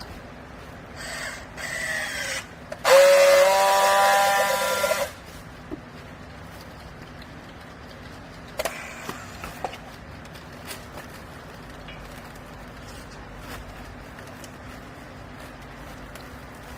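Strapping a used-clothes bale: two short squeals, then a loud squealing rasp lasting about two seconds, rising slightly in pitch, as a baling strap is drawn tight. A few sharp clicks follow later, over a steady machine hum.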